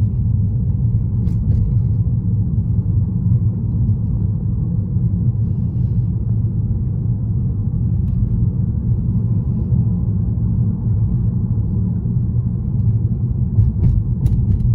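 Steady low rumble of a car driving, heard from inside the cabin: tyre, road and engine noise. A few faint ticks come near the end.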